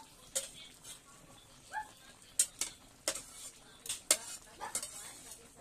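Irregular sharp clinks and taps of metal kitchenware, about a dozen spread unevenly, the closest ones in a cluster in the middle.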